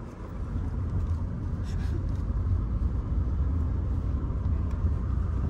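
Steady low rumble of a moving car, with road and wind noise.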